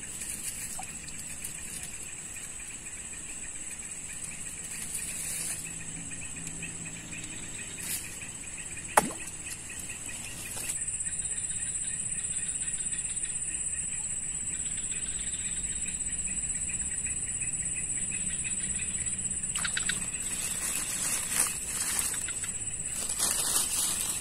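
Insects droning steadily in a continuous high whine, which gets louder about ten seconds in. A single sharp click about nine seconds in.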